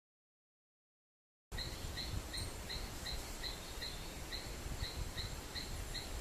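Silence for about the first second and a half, then outdoor wetland ambience begins abruptly: a steady rushing background with a low rumble, over which a small creature chirps in a regular rhythm, about three chirps a second, with a faint steady high whine behind it.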